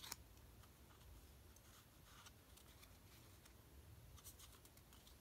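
Near silence, with faint rustles and light clicks of thick, uncoated paper tarot cards being handled and swapped by hand.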